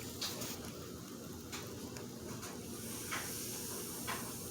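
Faint fizzing of a baking soda volcano reacting with dropped citric acid solution, carbon dioxide bubbles popping, with a few faint clicks.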